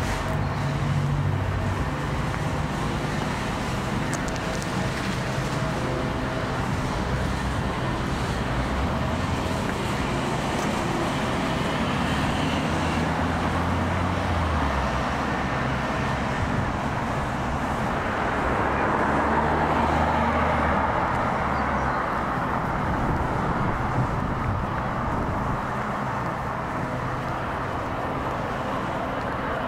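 Street traffic on a town road: a car's engine rumbles past about halfway through, then a broad swell of tyre and engine noise rises and fades as another vehicle goes by.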